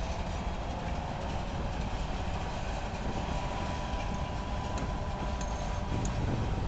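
Freight train of covered hopper cars rolling past, a steady rumble of steel wheels on the rails. A faint steady whine sits over it through the middle.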